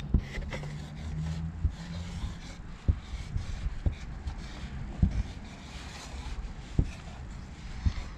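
Paint marker nib scraping in short strokes across the surface of a waste bin as a tag is written, with a few sharp knocks along the way and a steady low rumble underneath.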